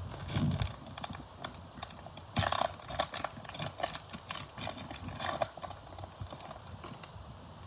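A trading card pack wrapper being torn open and peeled back by hand: a run of irregular crinkles and crackles, loudest about two and a half seconds in.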